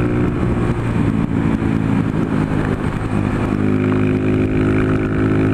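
Honda Pop 110 motorcycle's small single-cylinder four-stroke engine running at a steady high speed while the bike cruises, heard from on board. The engine note holds an even pitch throughout.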